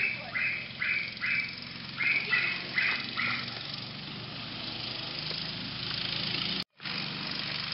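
A run of short, nasal honks, about eight in two quick groups, then a go-kart's small engine running steadily and growing a little louder, broken by a brief gap near the end.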